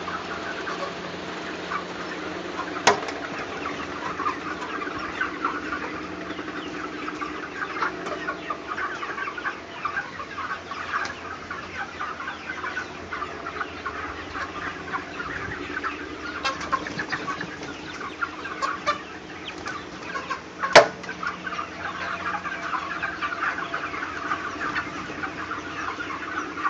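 A large flock of young broiler chicks peeping and cheeping together in a dense, steady chatter. Twice a sharp knock stands out, the louder one about two-thirds of the way through.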